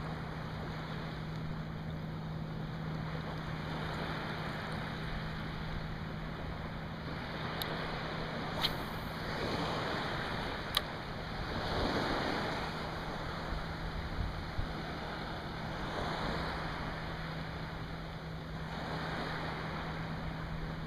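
Small waves lapping and washing on calm seawater, swelling every few seconds, with some wind on the microphone. A steady low hum runs underneath, and two sharp clicks come near the middle.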